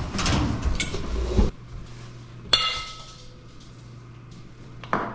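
Clattering and knocking of hard objects being handled, stopping abruptly about a second and a half in. Then a single sharp metallic clank that rings briefly, and a short knock near the end.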